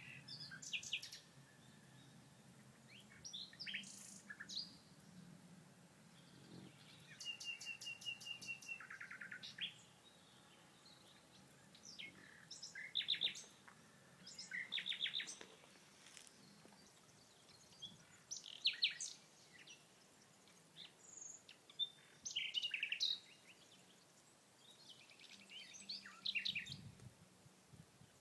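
Songbirds singing: a run of short chirping and rapid trilling phrases every few seconds, with quiet gaps between them.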